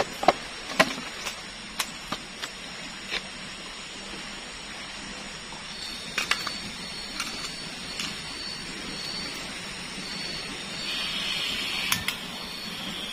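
Steady hiss of rain with scattered sharp taps of drops, more of them in the first few seconds. A faint high pulsing tone comes in about six seconds in, and the hiss swells briefly near the end.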